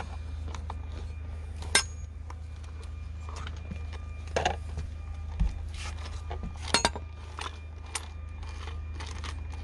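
Metal clinks and clicks of a socket tool fitted onto the chainsaw's bar nut and turned to loosen it, with handling knocks of the plastic saw body. A few sharper clinks stand out, over a steady low hum.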